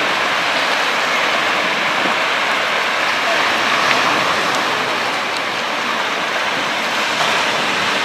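Storm surf breaking and washing along a rocky shore: a steady, loud rushing noise.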